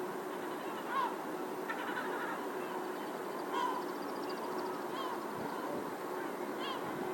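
A bird giving four short, harsh calls one to two seconds apart, over the steady hum and haze of city background noise.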